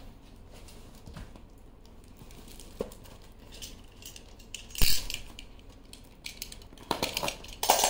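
Items and packaging being handled: scattered light clicks and knocks, one louder knock about five seconds in, and a flurry of rustling and clicks near the end.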